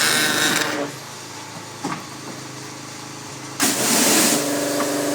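Pressure washer's engine running steadily, with the high-pressure spray hissing for about the first second, then stopping, then a short burst of spray about three and a half seconds in; the engine's tone grows heavier after the burst.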